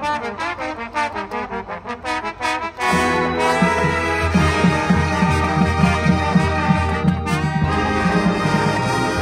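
High school marching band playing, its brass section to the fore over percussion. The first few seconds are short, detached notes; about three seconds in the band swells into sustained full chords.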